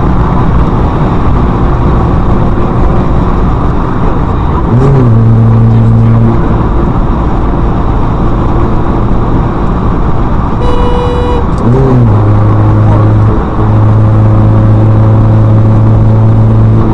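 Road and wind noise at highway speed, heard from inside a car through a dashcam. A low, steady droning tone comes in about five seconds in for a second and a half, and again from about twelve seconds on.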